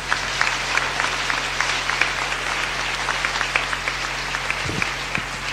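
A congregation applauding: many people clapping at a steady level.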